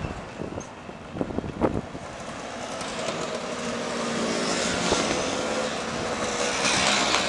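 A procession of motor scooters riding past one after another, their small engines buzzing and growing louder through the second half as riders draw level. A few sharp knocks come between one and two seconds in.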